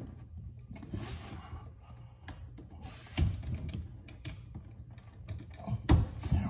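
Scattered clicks and light knocks with some rustling, from fuel pump parts and fittings being handled and fitted by hand. The sharpest knocks come about two, three and six seconds in.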